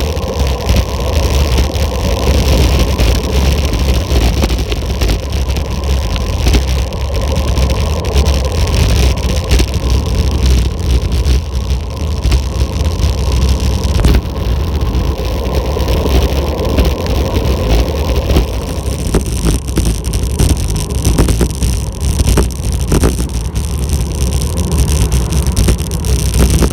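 Wind buffeting the microphone of a camera on the handlebars of a bicycle speeding downhill: a loud, steady rumble with tyre and road noise beneath it and a few sharp knocks.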